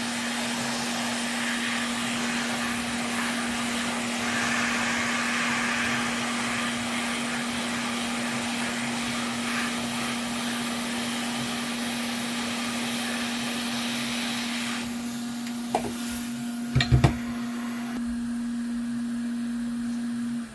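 Small electric blower running steadily with a constant low hum, with a few light clicks near the end before it cuts off abruptly.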